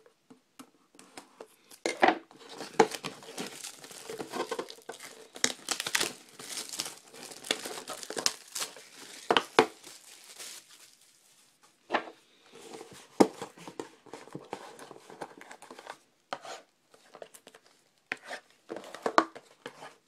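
Plastic wrapping torn and crumpled off a trading-card hobby box, with several seconds of dense crinkling. Then come a few sharp clicks and knocks of cardboard boxes being handled.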